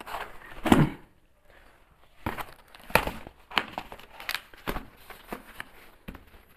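Cardboard shipping box being opened by hand: a series of short scrapes, rustles and tearing sounds of cardboard, with a brief lull about a second in.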